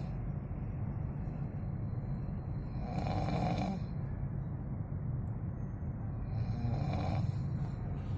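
A person snoring, with two snores about three and a half seconds apart, each under a second long, over a steady low rumble.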